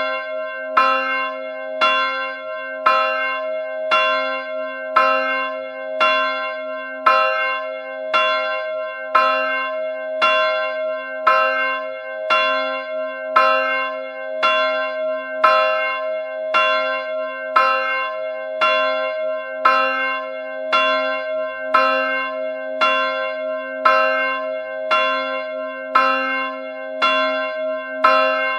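A church bell struck over and over at an even pace, about three strikes every two seconds, its deep hum ringing on unbroken between the strikes.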